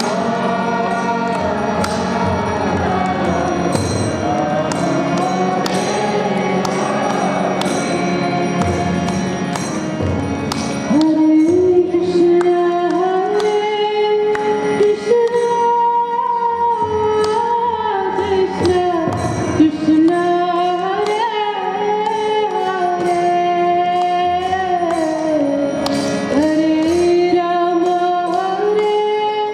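Devotional kirtan singing. Several voices sing together over a steady low drone and a regular clicking beat, then about eleven seconds in a single clear voice carries a stepped melody.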